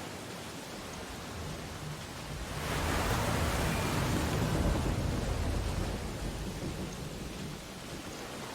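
Steady rain with a roll of thunder that swells up suddenly about three seconds in, rumbles for a few seconds and fades back into the rain.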